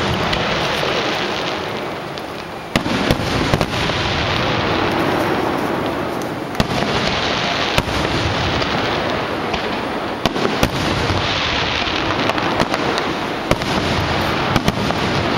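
Aerial fireworks display: shells bursting one after another, many sharp bangs over a steady hiss and crackle.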